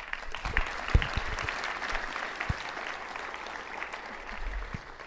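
Audience applauding, strongest at the start and dying away near the end, with a few low thumps in the first seconds.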